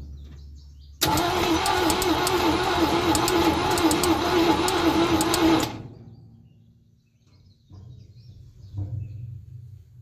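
A 1967 Dodge D100's starter motor cranks the engine for about four and a half seconds without it catching, the cranking pitch rising and falling several times a second, with sharp ticks mixed in. The distributor's breaker points are opening and firing, but no spark reaches the plugs.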